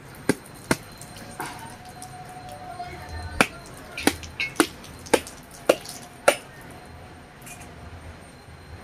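A heavy knife blade striking a whole brown coconut held in the palm, about nine sharp knocks, most of them coming about every half second in the middle, cracking the shell open so its water can drain out.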